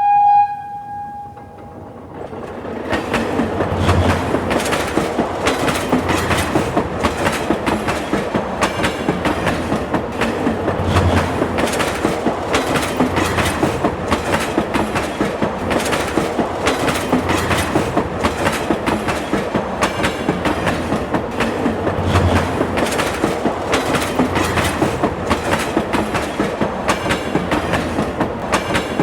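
Subway train: a short horn note that fades about a second in, then the train running steadily with a regular clickety-clack of wheels over rail joints and occasional low thumps.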